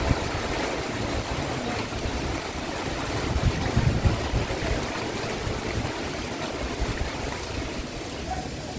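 Heavy rain falling steadily, an even hiss, with a low rumble beneath that swells about three and a half seconds in.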